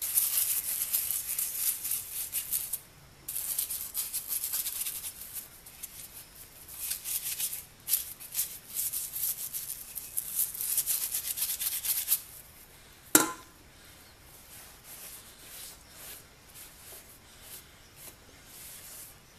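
Stiff bristle brush scrubbing a kerosene-soaked three-jaw lathe chuck part: rapid scratchy strokes, with a short pause about three seconds in, stopping around twelve seconds. A single sharp knock follows about a second later.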